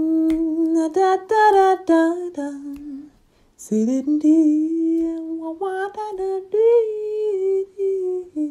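A woman humming a wordless melody, holding long notes that step up and down, in two phrases with a short break about three seconds in.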